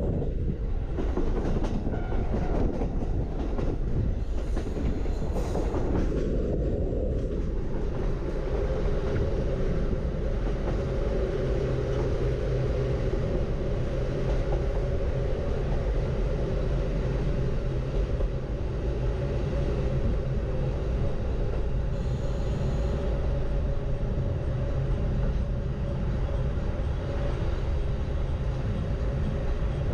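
Norokko sightseeing train running along the line, heard from aboard: a steady rumble of wheels on the rails, with a faint rhythmic clatter.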